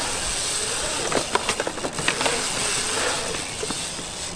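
BMX bike rolling fast around a concrete bowl: a steady rolling hiss from the tyres on the concrete, with a few light knocks along the way.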